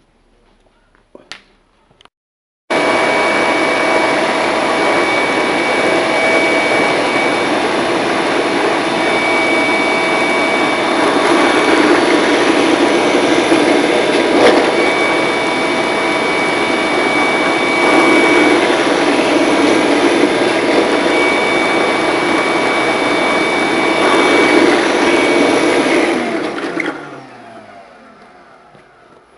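Electric woodworking power tool running steadily with a constant motor whine, then switched off near the end and winding down with falling pitch.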